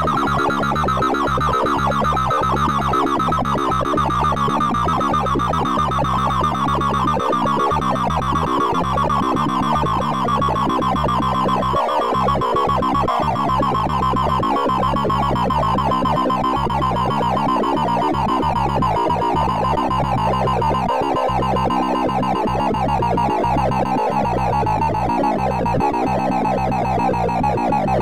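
Heap sort sonification: a fast, dense stream of short synthesized beeps, each pitched by the value of a bar being compared or moved. The overall pitch drifts slowly down as the largest remaining values are pulled off the heap into the sorted end.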